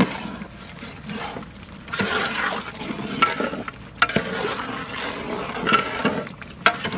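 A ladle stirring a thick, watery drumstick curry in a large metal pot: wet sloshing in uneven strokes, with a few sharp knocks of the ladle against the pot.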